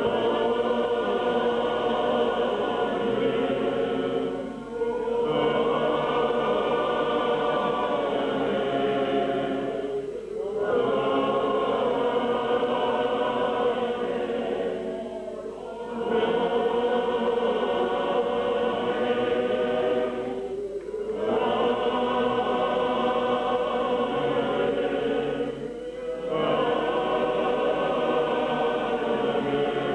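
A church choir singing a hymn together in long phrases of about five seconds, each followed by a brief pause for breath.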